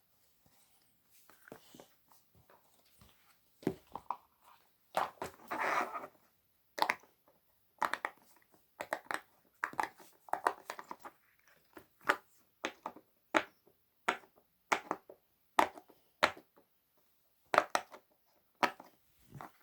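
Silicone pop-it fidget toy being pressed, giving a long run of short pops and clicks at an uneven pace, with a denser crinkly cluster about five seconds in.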